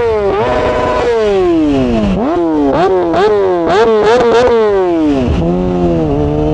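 Kawasaki ZX-6R's inline-four engine through an SC Project slip-on exhaust, revved hard: the pitch climbs steeply and drops back several times in quick succession, then falls away and settles to a steady lower note about five seconds in.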